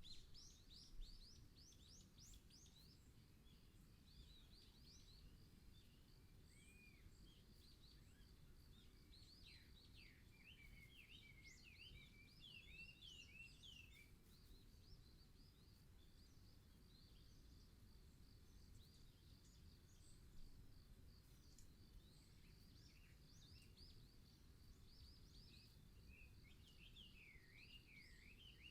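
Faint songbirds chirping in a beech forest: scattered quick whistled notes that sweep up and down, busiest in the middle and near the end, over a low steady rumble.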